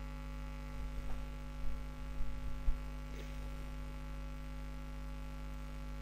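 Steady electrical mains hum, a low buzz with several fixed tones, with a few faint short knocks between about one and three seconds in.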